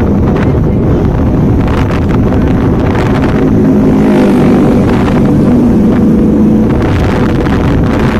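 Motorcycle engine running at road speed, with wind buffeting the microphone. A steady engine drone comes through more clearly about three seconds in.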